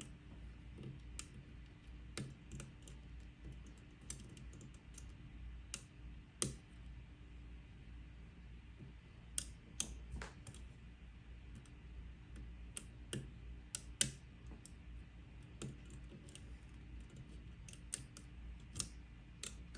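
Small, irregular metallic clicks and ticks of a lock pick working the pin stack of a pin-tumbler challenge lock under light tension: single-pin picking, with faint clicks as pins are lifted and set.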